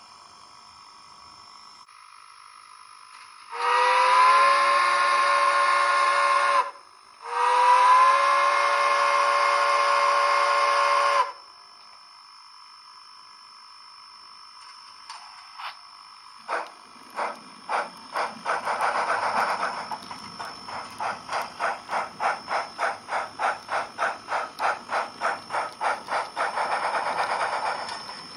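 Sound-equipped H0n3 model of a Colorado & Southern Mogul steam locomotive giving two long whistle blasts, the signal to proceed. A few seconds later its exhaust chuffs begin and settle into a steady beat of about two a second as it pulls away.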